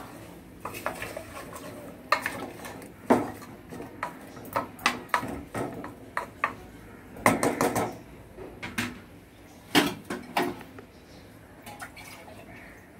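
A spatula scraping and knocking against the inside of an aluminium pressure cooker while chicken and vegetables are stirred, in irregular clinks and scrapes, with louder knocks about seven and ten seconds in.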